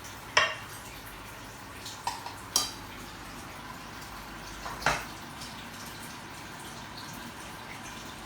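A few light clinks of utensils against dishes, spaced irregularly over a steady background hiss.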